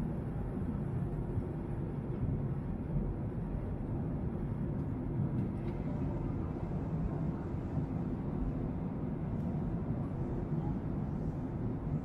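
Steady low drone of an airliner's cabin in flight: engine and airflow noise heard from inside the cabin.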